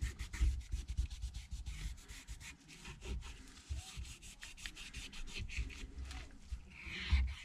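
Cloth dampened with isopropyl alcohol rubbed back and forth over a smartphone's housing, a run of short, irregular scratchy wiping strokes with a few light bumps. It is the cleaning of dust and dirt from the frame so that new screen adhesive will stick.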